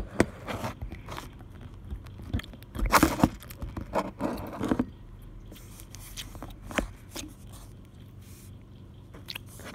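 Green slime being squished and handled, giving irregular crackles and pops that are thickest about three to five seconds in, then quieter, with a few sharp clicks.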